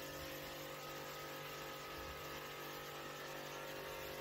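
Steady whir and hum of an electric fan motor running, with an even buzz that does not change.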